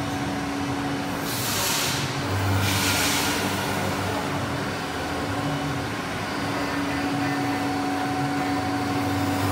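Anayak FBZ 3000 CNC milling machine running with a steady hum and a steady tone, with two short hisses about one and a half and three seconds in.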